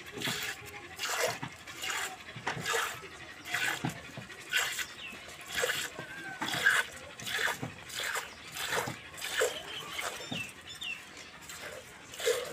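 Cow being milked by hand into a metal bucket: short jets of milk hissing into the pail in a steady rhythm of about two squirts a second as the hands alternate.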